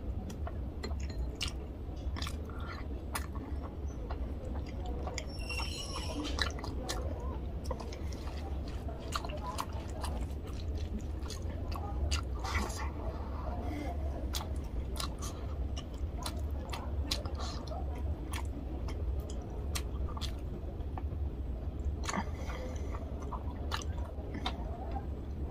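Close-miked chewing and lip-smacking of tilapia fish curry and rice eaten by hand, with many short, irregular wet clicks. A steady low hum runs underneath.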